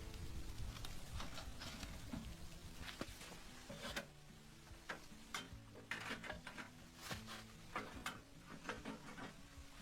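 Irregular light clicks and crackles, a few a second, over a faint low background.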